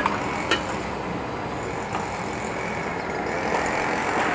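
Road traffic going by: a steady rushing noise that swells slightly toward the end, with a few light clicks near the start and about two seconds in.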